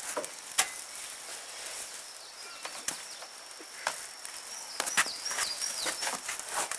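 Scattered rustling and knocking of a cloth sack being handled and feet shifting while a black snake is grabbed from a chicken house, over a steady high insect drone. A few short falling bird chirps come about five seconds in.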